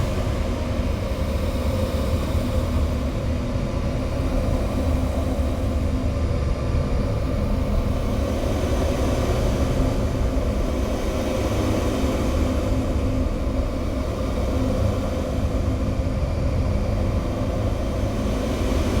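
Steady, dense low rumble with a few held tones over it: a droning noise passage of a recorded album track, with no beat or breaks.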